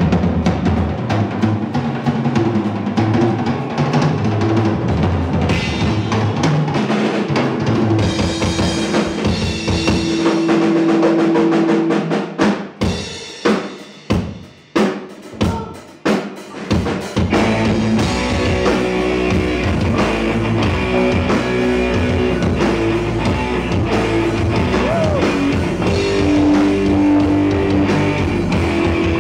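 Live rock band playing loudly: drum kit, electric bass and electric guitar. About halfway through, the band breaks off into a few separate hits with short gaps between them, then the full band comes back in.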